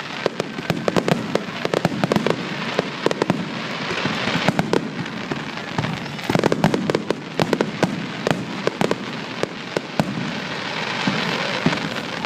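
Fireworks display going off in quick succession: dense crackling with many sharp bangs over a continuous noisy rush.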